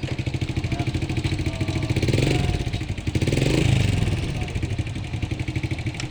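Engine running with a rapid pulsing beat, swelling louder twice as it is revved.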